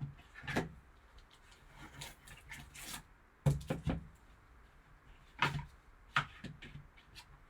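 Trading card box packaging being handled and opened by hand: scattered clicks, taps and light rustling, with a cluster of sharper knocks about halfway through.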